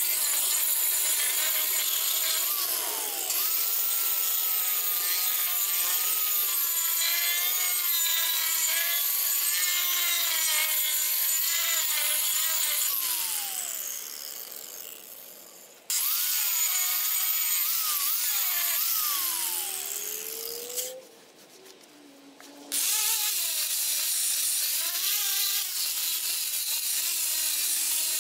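Electric angle grinder grinding the end grain of a wooden chopping block; its pitch wavers as it is pressed into the wood. Twice it winds down and stops, then starts up again.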